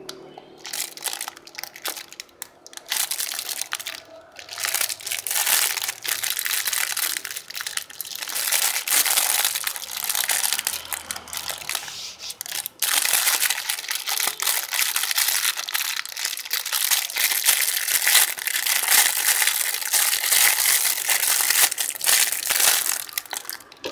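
Thin clear plastic packaging bag crinkling and rustling as it is handled and pulled open by hand, almost without let-up, with short breaks about four and thirteen seconds in.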